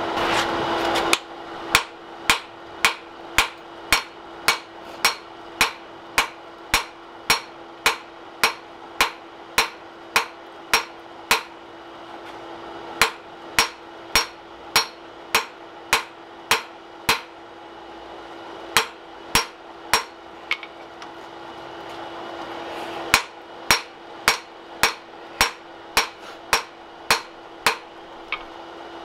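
Blacksmith's hand hammer striking red-hot axe steel on an anvil, sharp blows at about two a second, with two short breaks past the middle, while drawing out the distal taper of the axe bit. A steady hum runs underneath.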